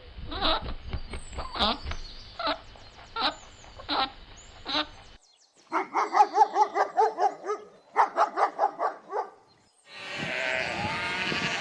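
Farm animal calls in separate clips one after another. First a run of short, repeated calls, then after a brief gap a quick string of wavering bleat-like calls, then from about ten seconds in a denser, noisier mix of animal calls.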